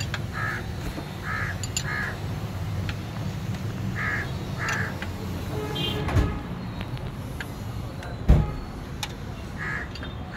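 A bird calling repeatedly in short calls, mostly in pairs, over a steady low hum, with a single loud thump about eight seconds in.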